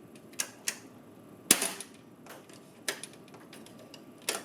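Sharp plastic clicks and snaps from a new roller assembly being fitted and seated in a Lexmark printer's automatic document feeder. There are about five separate clicks, the loudest a little past the middle.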